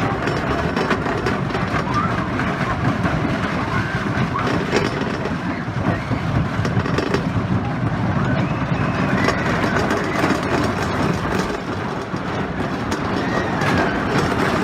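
Scenic Railway roller coaster train running along its track: a steady, loud rumble of the cars and wheels.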